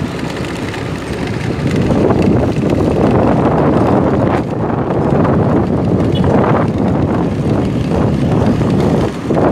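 Wind buffeting the microphone over the steady running noise of a moving vehicle.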